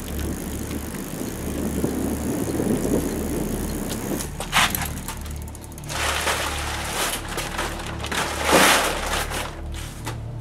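Low, steady droning music under bicycle handling noise: a rough rolling sound early on, then a few scraping, rattling bursts as a bicycle is moved about among other bikes, the loudest near the end.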